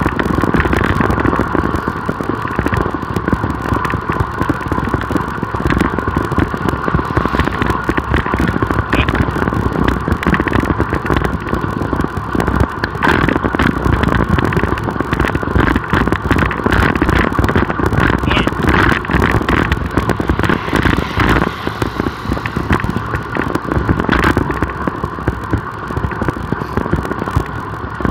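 Wind and road noise on the microphone of a camera riding on a road bike, with a steady high-pitched hum and a few sharp clicks around the middle.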